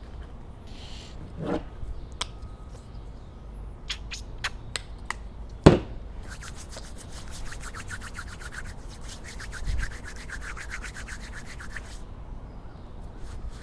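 A few sharp clicks and one loud knock, then about six seconds of quick, rapid scrubbing strokes that stop suddenly.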